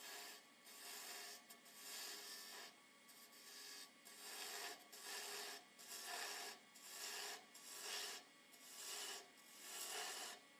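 Turning tool cutting grooves into wood spinning on a lathe: a series of short scraping cuts, about one a second, each a hiss of shavings coming off the wood.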